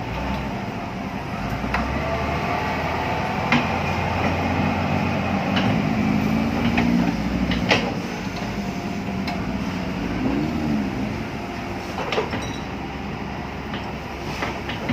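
Excavator's diesel engine running under load, a steady low drone, with the hydraulics whining up and down in pitch as it digs. Several sharp metallic knocks from the bucket and arm are scattered through it.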